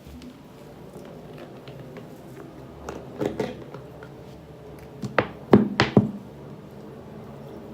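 Hands working slime and its utensils, giving a few sharp clicks and knocks: a small cluster about three seconds in and four louder ones between five and six seconds in.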